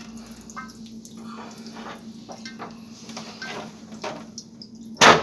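Water dripping and small clicks and taps of work at an electric water heater, over a steady low hum. About five seconds in, one sharp, loud knock.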